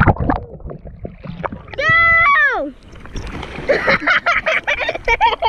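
Water splashing and sloshing close around a camera held at the surface. About two seconds in there is a long, high yell that drops in pitch as it ends, then splashing as someone flips backwards off an inflatable paddle board into shallow water.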